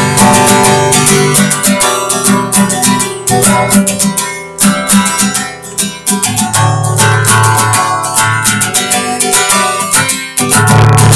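Intro music: a guitar strumming chords in a steady rhythm.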